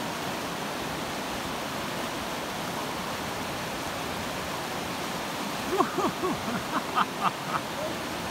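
Steady rush of the Kukkolaforsen rapids on the Torne River, white water pouring over and between boulders. A few short, pitched calls ring out over the water near the end.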